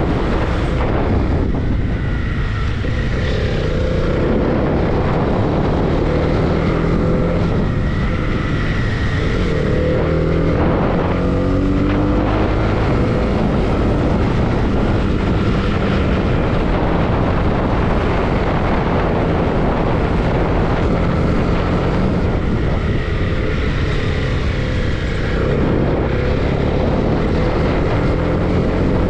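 Motorcycle engine running on the move, its pitch rising and falling several times with the throttle and gear changes, over a steady rush of wind and road noise.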